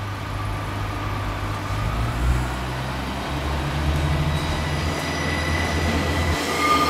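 Class 144 Pacer diesel railbus heard from inside the passenger saloon while moving: a low drone from the underfloor diesel drivetrain that shifts pitch about two and three seconds in. Thin high steady wheel-squeal tones set in from about four seconds and grow stronger near the end.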